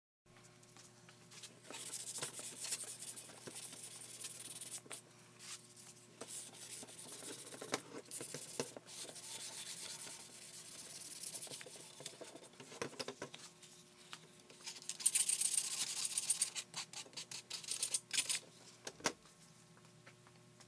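Irregular spells of hand rubbing with an abrasive on a part, stroke after stroke with short pauses between. The rubbing is busiest about three-quarters of the way through.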